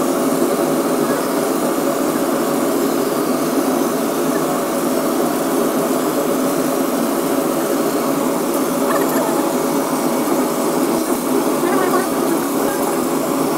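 Laser cutter running while its head traces cuts in a wooden sheet: a steady machine whir at an even level, with voices murmuring faintly behind it.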